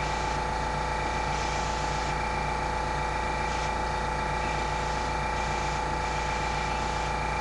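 A small air compressor hums steadily while an airbrush hisses on and off in short spurts, spraying paint onto a fish mount.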